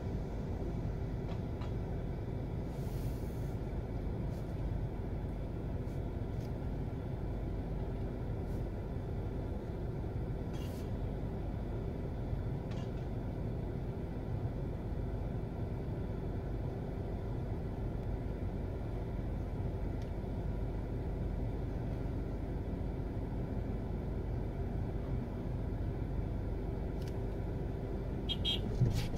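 Steady low rumble of a car idling in traffic, heard from inside the cabin. A brief sharp click comes near the end.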